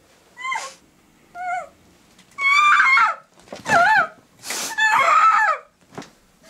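A woman's shrill, wavering cries, about five in a row, sliding up and down in pitch with an animal-like yowl, as she thrashes in a chair. The longest and loudest cries come in the middle.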